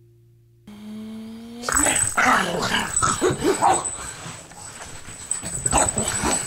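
Pug puppy growling in play, starting with a short rising whine about a second in.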